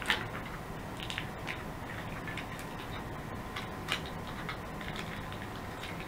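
Small ticks and crackles of hands working a foil drink-mix pouch and breaking its hardened, gum-like lemonade powder into a metal canteen cup, with a sharper click near the start and another about four seconds in.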